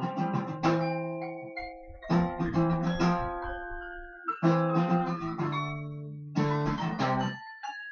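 Acoustic guitar strummed in chords, about eight strikes that each ring on and fade, the last one dying away near the end.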